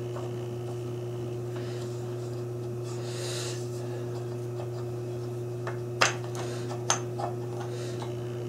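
Wooden parts of a homemade toy bulldozer handled and pressed together: a soft rubbing, then a sharp wood-on-wood click about six seconds in and two lighter clicks about a second later, over a steady low hum.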